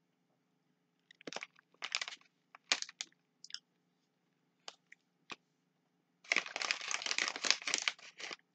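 Crinkling of a plastic Skittles bag and the chewing of the candy, in short bursts over the first few seconds and a longer stretch of rustling near the end.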